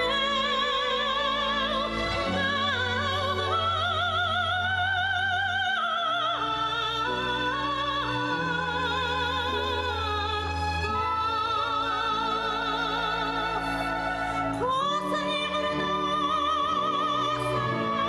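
A soprano singing long held notes with wide vibrato in an operatic style, over orchestral accompaniment.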